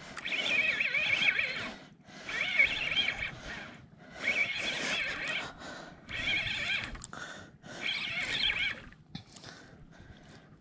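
Fishing reel whirring in about five bursts, each a second or so long, one every second and a half to two seconds, with a wavering high pitch, as line is worked during a fight with a fish.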